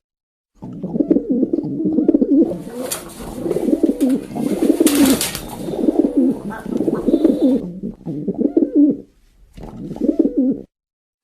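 Pigeons cooing in repeated warbling calls, with short silent breaks at the start and near the end. A hissing rustle sounds over the middle few seconds.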